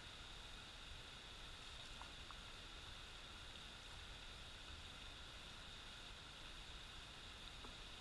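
Near silence: a faint steady hiss with a few tiny clicks.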